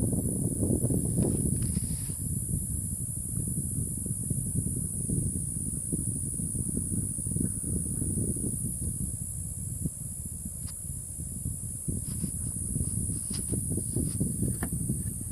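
A steady high-pitched whine from a Winix WACU150 air purifier's PlasmaWave ionizer, over the low rush of its fan, with a few light clicks in the second half. The whine comes from the PlasmaWave's electrical sterilization and is normal, not a fault; it stops when PlasmaWave is switched off.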